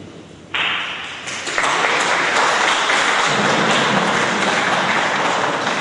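Audience applauding, starting suddenly about half a second in and building to steady, loud clapping.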